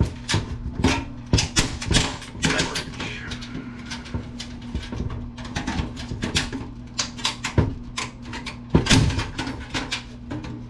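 Irregular clicks, knocks and clatter of hand tools against the steel and plastic parts of a desktop computer case being taken apart, over a steady low hum.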